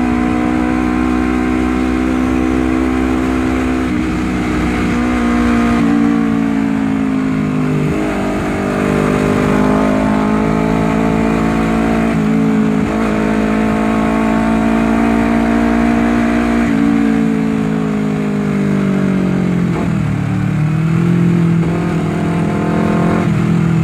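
Honda CBR250RR's engine through a 3Tech EvoX X3NRC aftermarket racing exhaust, heard from the bike while riding. The exhaust note rises and falls with the throttle: it dips about six seconds in, climbs again, dips briefly around twelve seconds, holds steady, then falls near twenty seconds before climbing once more.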